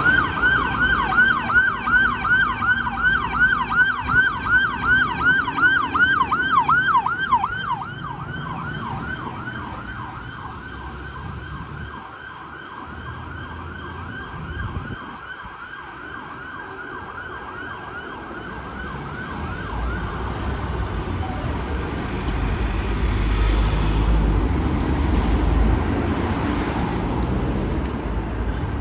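Siren of a London Fire Brigade 64 m turntable ladder sounding a rapid yelp of about three to four rising-and-falling sweeps a second. It is loud at first, turns fainter after about seven seconds as the appliance pulls away, and dies out about twenty seconds in. Road traffic noise grows near the end.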